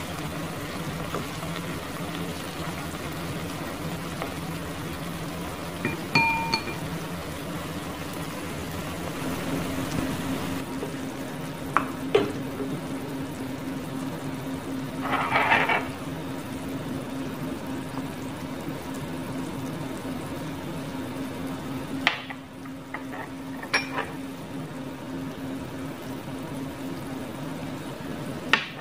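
Chilli-garlic mixture frying in oil in a nonstick pan, a steady sizzle over a low hum. Every few seconds a wooden spatula knocks or scrapes against the pan, with one brief ringing clink a few seconds in.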